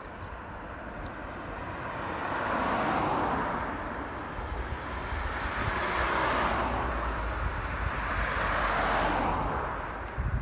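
Road traffic passing: tyre and engine noise from vehicles swells and fades about three times, one pass after another.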